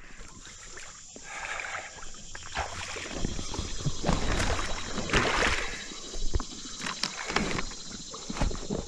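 Double-bladed kayak paddle dipping and splashing beside a Sea Eagle 370 inflatable kayak, with water sloshing against the hull. The splashes come irregularly, loudest about halfway through.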